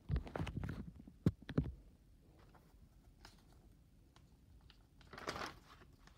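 Paper pages of a spiral-bound notebook being turned and handled: rustling with a few knocks and two sharp clicks in the first two seconds, then another page rustle a little past five seconds in.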